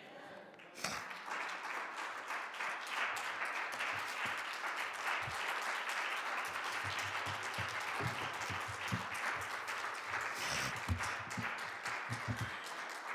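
Congregation applauding, a dense patter of many hands clapping that starts about a second in and dies down near the end.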